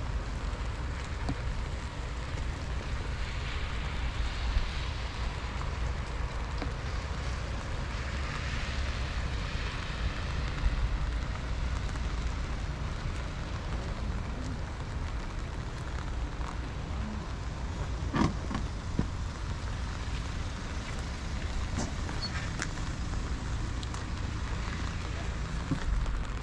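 Wind rumbling on the microphone over a steady hiss of light rain, with a few faint clicks and knocks.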